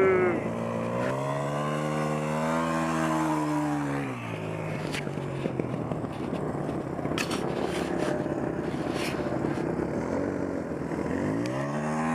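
Dirt bike engine revving up and falling back over the first few seconds, then running rough under wind noise with a few sharp clicks, and revving up and down again near the end.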